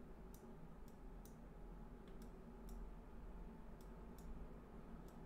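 Faint computer mouse clicks, several at irregular spacing, over a low steady room hum.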